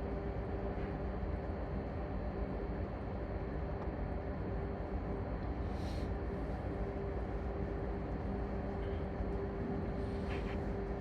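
Steady drone of a ship's engine-room machinery running, with a constant low hum and two brief hissing bursts, about six seconds in and near the end.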